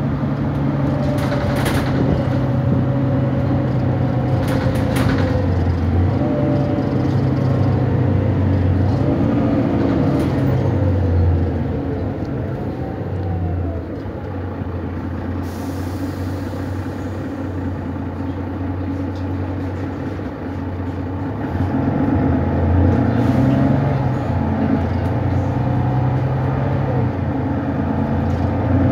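Single-deck bus heard from a passenger seat in the saloon, its engine pulling through gear changes. The engine eases off and drops in level around the middle, then picks up again as the bus accelerates. There are a few knocks and rattles a couple of seconds in, and a brief hiss of air about halfway through.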